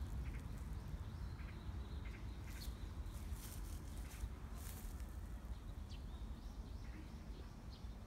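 Outdoor garden ambience: a steady low rumble of wind on the microphone, with a few faint short bird chirps and brief hissing rustles now and then.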